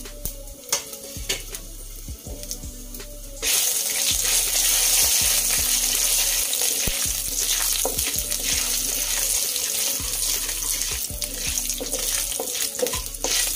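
Cumin seeds, bay leaves and spices sizzling in hot mustard oil in a kadhai, a spice tempering (tadka), with a spatula stirring and knocking against the pan. The sizzle turns suddenly much louder about three and a half seconds in.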